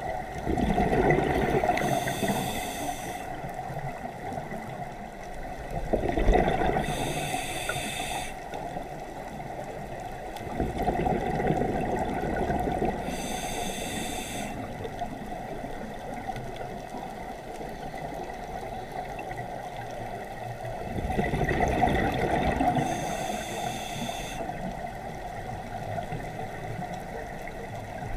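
Scuba regulator breathing underwater: four breaths, each a gurgling rush of exhaled bubbles followed straight away by a short hiss of air through the regulator.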